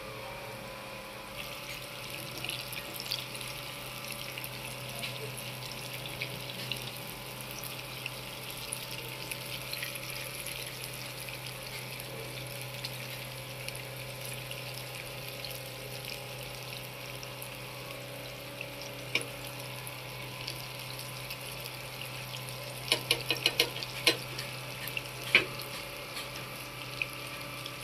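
Batter-coated chicken wings deep-frying in a pan of hot oil: a steady sizzle of bubbling oil with small crackles over a low steady hum. Near the end comes a quick run of sharp clicks as a spatula knocks against the pan.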